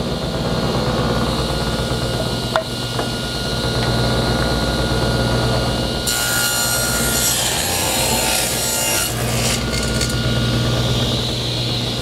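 Table saw running steadily, its blade ripping a rough-sawn Western red cedar fence picket lengthwise, with the cut from about six to nine seconds in. A single sharp click comes a couple of seconds in.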